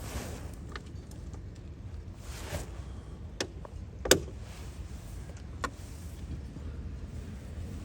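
A few sharp clicks and knocks from handling parts of a car's turn signal lamp assembly, the loudest about four seconds in, over a low steady rumble.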